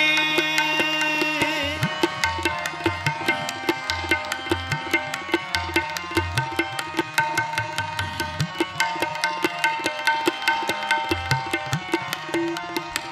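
Instrumental kirtan interlude: harmoniums hold a sustained melody while a tabla keeps a steady rhythm of quick, even strokes, with deep bass strokes on the bayan joining about two seconds in.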